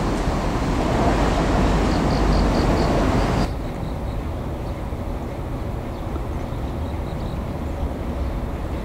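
Hydraulic excavator with a demolition grapple working on scrap: dense machinery noise with a quick run of high beeps about two seconds in. About three and a half seconds in the sound drops abruptly to a quieter, steady machinery noise.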